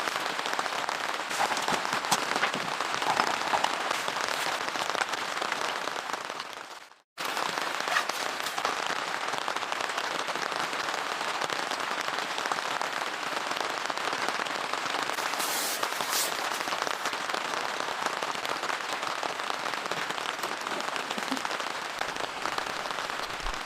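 Steady heavy rain pattering on a surface, a dense hiss full of tiny drop ticks. It cuts out abruptly for a moment about seven seconds in, then comes straight back.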